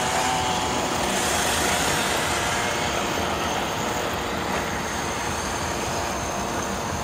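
Radio-controlled model race cars running around a dirt track, their small motors buzzing steadily.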